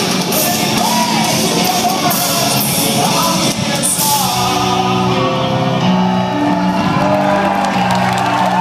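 Live rock band playing loudly, with drums and cymbals, until about halfway through, when the cymbals drop out and held notes ring on. Shouts and whoops from voices rise over the music.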